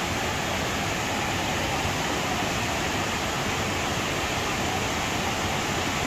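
Water rushing and falling over a small dam on a waterfall stream, a steady unbroken rush.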